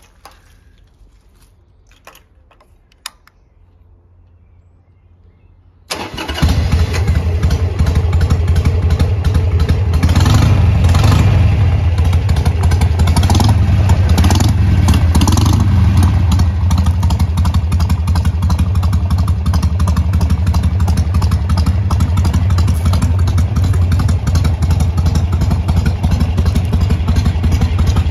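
A few faint clicks, then about six seconds in the 883 cc V-twin of a 2004 Harley-Davidson Sportster 883 Custom, in stage one tune with S&S exhausts, starts up. It is revved a few times, then settles to a steady, loud idle.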